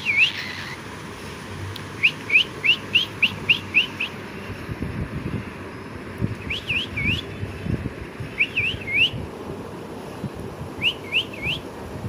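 Cockatiel chirping: short, quickly rising high notes in rapid runs, a run of about eight about two seconds in, then groups of three with pauses between.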